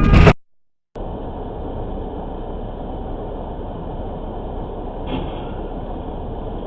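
Dashcam audio: loud road noise with a steady tone cuts off abruptly, then after half a second of silence comes the steady, muffled hum of a car's cabin and road noise from a low-quality dashcam, with one faint short sound about five seconds in.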